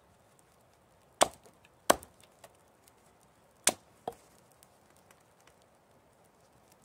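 Hults Bruk Almike hatchet chopping into a green alder stick on a chopping stump: three sharp chops, then a lighter fourth one just after the third.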